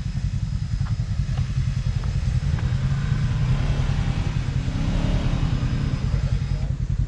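Side-by-side UTV engine running steadily, with a few light clicks in the first half.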